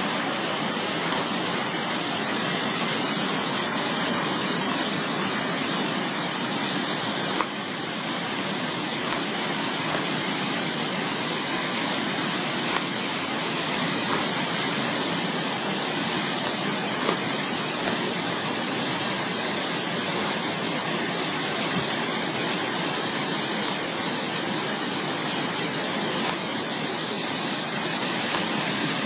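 Floodwater rushing through a canyon after heavy rain: a steady, unbroken rush of water, with a few faint knocks.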